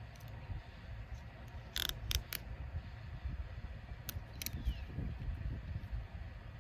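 A few sharp clicks and taps, several in a quick cluster about two seconds in and two more a couple of seconds later, over a steady low rumble of wind on the microphone.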